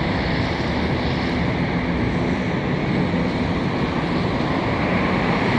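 Steady, even roar of road traffic, with a faint low engine hum running under it.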